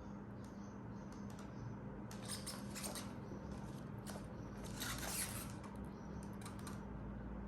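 Scattered light clicks and taps, a dozen or so and most of them in the middle seconds, over a steady low hum.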